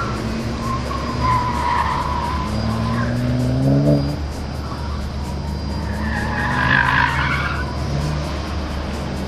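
Porsche 968 driven hard through an autocross slalom: the engine revs up through a gear and drops back, and the tyres squeal twice, once about a second in and again, louder, around seven seconds in.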